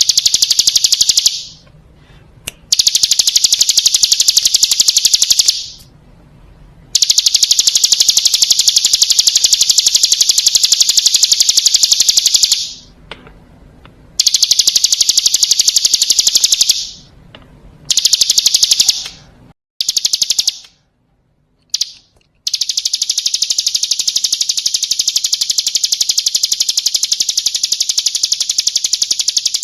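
Hill prinia (ciblek gunung) singing its rapid 'ngebren' trill: loud, high-pitched runs of very fast repeated notes that stop and restart about seven times, the longest run near the end lasting some seven seconds.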